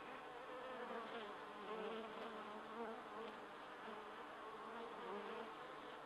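Honey bees buzzing around an open hive and a lifted brood frame: a faint, steady hum whose pitch wavers as the bees fly.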